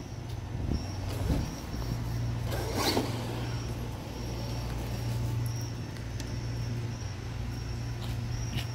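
Traxxas Maxx RC monster truck driving, its brushless electric motor and drivetrain running steadily, with a sharp click about three seconds in.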